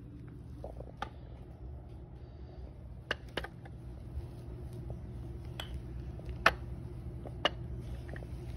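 Wooden balls knocking against the wooden top of a Melissa & Doug pound-a-ball tower toy as a child handles them: about six sharp, separate wooden clacks, the loudest about six and a half seconds in.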